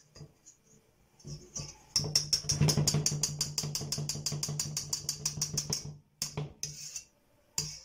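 Silicone spatula scraping meringue off a stand mixer's wire whisk attachment over a stainless steel bowl: a fast run of clicks, about eight a second, as the spatula runs across the wires, lasting about four seconds, with a couple of short scrapes near the end.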